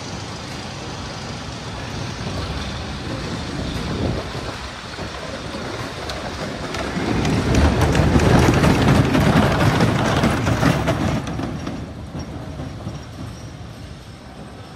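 Hoosier Hurricane wooden roller coaster train rumbling and rattling along the track as it passes close by. It is loudest a little past halfway, then fades as it moves away.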